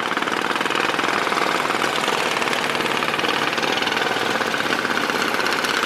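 A boat engine running steadily with a fast, even chugging.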